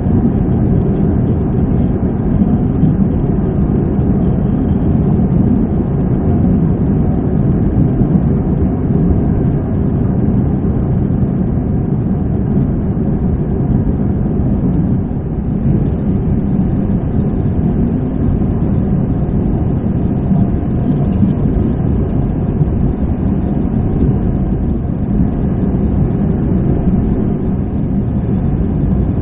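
Steady low rumble of airliner cabin noise inside an Airbus A321, the even drone of engines and airflow with no change in level.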